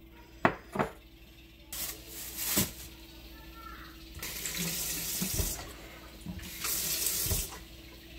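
Kitchen tap running into a sink in three short bursts, water splashing, after two sharp knocks about half a second in.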